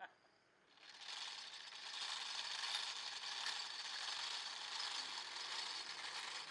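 Hand-cranked iron rope-spinning wheel turning as it twists coconut coir fibre into yarn. From about a second in it gives a steady mechanical whirr and rattle.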